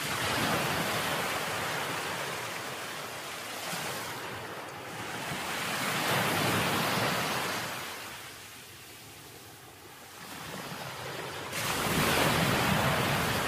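Sea waves washing onto a beach, the surf swelling and fading about every six seconds.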